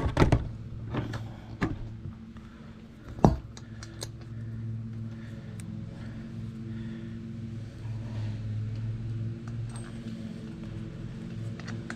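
Small metal clicks and clinks as a washer and retaining pin are fitted onto a garden dump cart's wheel axle, with a few sharper knocks near the start and one loud knock about three seconds in. A steady low hum runs underneath.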